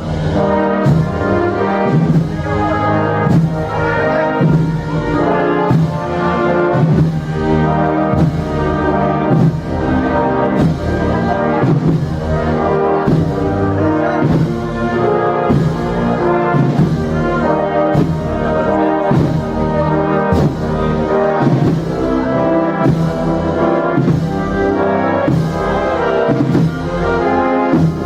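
Processional band playing a slow march, with trumpets and trombones leading over low brass and a steady beat about once a second.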